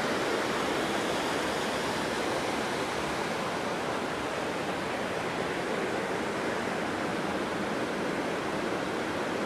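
Creek in high flow, rushing steadily over a small weir and rocky cascades.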